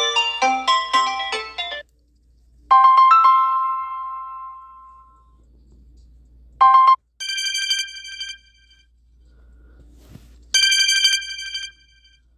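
Samsung Galaxy A71 5G notification and ringtone sounds played one after another. A mallet-like melody stops about two seconds in, followed by a chime that rings out, a short bright tone, and a high repeated-note chirp heard twice.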